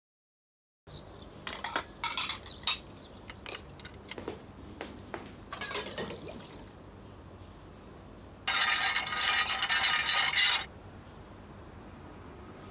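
Kitchen clatter of dishes, cups and cutlery: a run of sharp clinks and knocks over the first few seconds. About eight and a half seconds in, a loud rasping noise sets in, runs about two seconds and stops abruptly.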